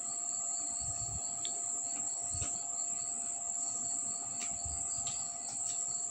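Chicken pieces deep-frying in hot oil in an aluminium kadai: a steady sizzle, with a few light clicks of a wire strainer against the pan as the pieces are lifted out.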